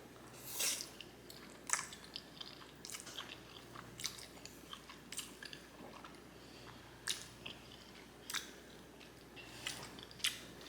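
A person chewing a mouthful of black bean noodles in thick sauce: wet mouth smacks and clicks at irregular intervals, roughly one a second.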